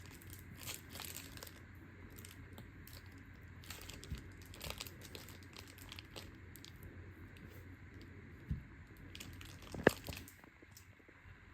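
Faint crinkling and rustling of a plastic slime packet being squeezed to push the last of the slime out, with scattered soft clicks and one sharper click near the end.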